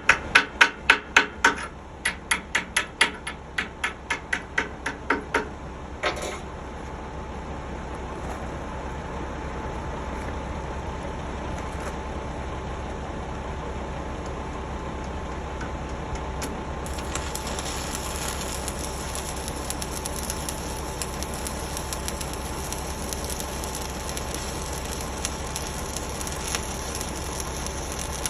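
Hammer strikes on steel, about three a second, for the first five seconds or so. A steady crackling hiss then follows, which fits a 7018 stick-welding arc, and the crackle grows stronger about 17 seconds in.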